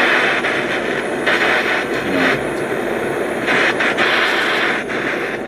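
Butane torch burning with a loud, steady hiss as its flame heats the quartz banger of a dab rig; the flame is shut off suddenly near the end.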